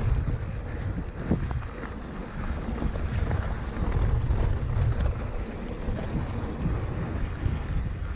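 Wind buffeting a camera microphone on a mountain bike ridden fast down dirt singletrack, with a low rumble from the trail and a sharp knock about a second in.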